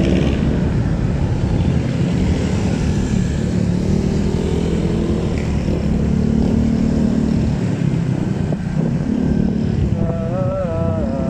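Motorcycle engine running in slow city traffic, its pitch rising and falling as the bike speeds up and slows, with other vehicles around it. Near the end a wavering higher tone joins in.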